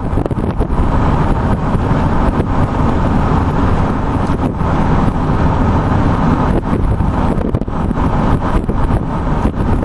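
Heavy wind buffeting the microphone over a steady low rumble, the sound of recording while travelling at speed.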